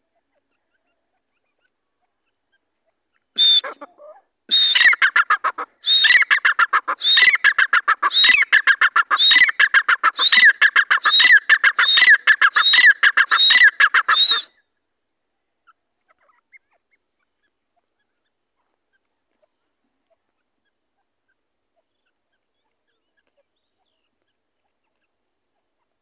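Grey francolin (teetar) calling: a loud, rapid run of repeated ringing notes with a strong note about once a second. It starts with one short call a few seconds in, then runs for about ten seconds and stops abruptly.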